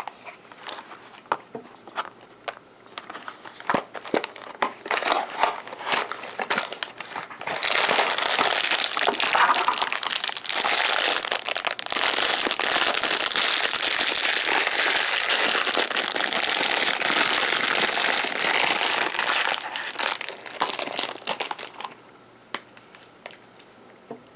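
Packaging being handled: sharp scattered clicks and taps for the first several seconds, then from about seven seconds in a long stretch of loud, continuous crinkling of a clear plastic bag of foil-wrapped chocolate kisses. The crinkling stops about two seconds before the end, leaving only faint rustling.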